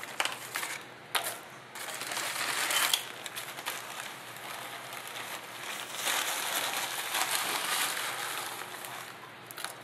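Plastic bag of coarse rock salt crinkling as it is handled and tipped, with the salt pouring and rattling onto wet cement mix in a plastic tub. The rustle comes in two stretches, about two seconds in and again from about six seconds, with a few sharp clicks.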